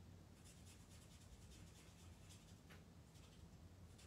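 Faint scratching of an alcohol-based marker's small tip stroking across cardstock in short, irregular strokes while colouring and blending shading, over a low steady hum.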